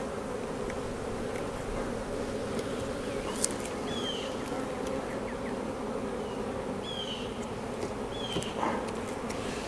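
Honeybees buzzing around an opened hive: a steady, dense hum of many bees.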